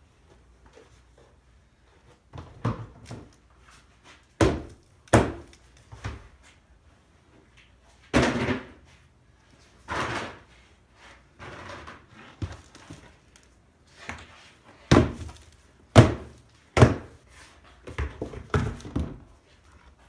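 Black plastic tubs being lifted out of a worm bin and set down: about a dozen irregular thunks and knocks, the loudest near the end.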